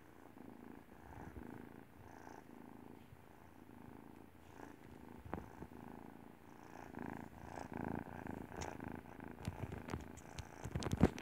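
Kitten purring steadily while being stroked, with a few sharp clicks near the end.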